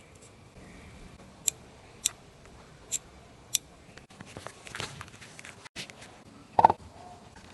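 Four sharp clicks, irregularly spaced a little under a second apart, then rustling and scraping, and near the end one loud knock with a short ring: small parts and tools being handled in a workshop.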